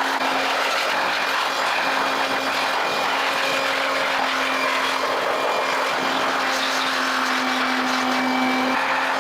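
A motor running steadily: an even hiss with a constant hum underneath, holding the same level throughout.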